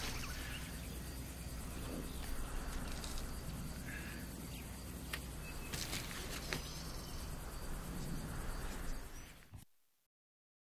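Outdoor ambience from a film soundtrack: a steady hiss over a low rumble, with a few faint clicks, fading out near the end.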